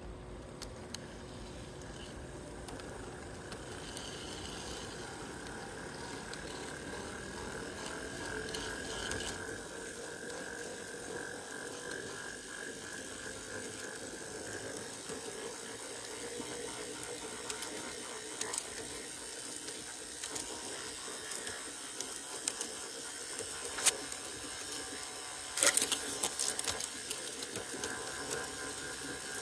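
G scale model train running along the garden track: a steady whine of the electric motor and gears, with wheels clattering on the rails. A few sharp clicks near the end, as the wheels cross rail joints or a switch.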